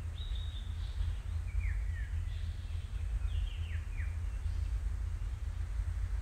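Wild bird calling: a quick run of high notes at the start, then several short chirps that drop in pitch, about two and four seconds in. Under it runs a steady low rumble.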